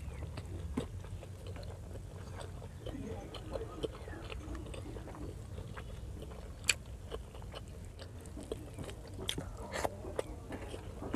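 Close-miked chewing and wet mouth sounds of someone eating pork liver igado with rice, broken by many short sharp clicks and smacks, the sharpest about six and a half seconds in, over a steady low hum.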